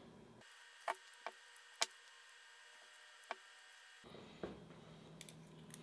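Four faint, sharp clicks of small metal paper-shredder cutter discs and spacers being handled, over near-quiet room tone.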